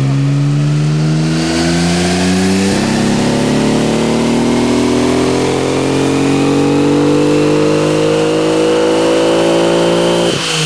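Nissan RB26DETT twin-turbo straight-six making a full pull on a chassis dyno. The revs climb steadily for about ten seconds, with a fainter whine rising alongside, then drop away suddenly near the end as the throttle is lifted. The engine is suffering from a bad misfire.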